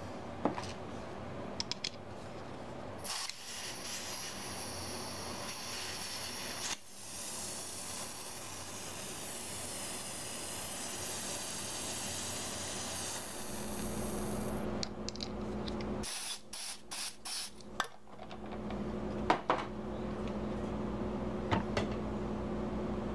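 Compressed gas hissing from the valve of an airsoft M203 grenade shell: a spray of about three seconds, then a longer one of about eight seconds, followed by several short spurts.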